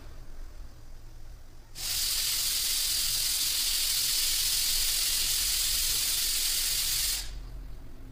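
A loud, steady hiss that starts suddenly about two seconds in and cuts off suddenly about five seconds later.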